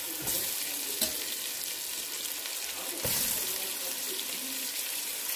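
Chicken drumsticks frying in hot oil in a nonstick pot: a steady sizzle that swells twice as pieces are moved and laid in with a utensil. There is a sharp click about a second in.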